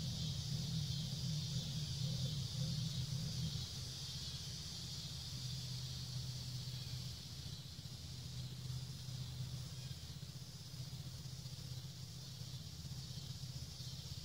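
Outdoor summer ambience: a steady high buzzing chorus of insects over a low, steady motor hum that is louder for the first few seconds and then eases off a little.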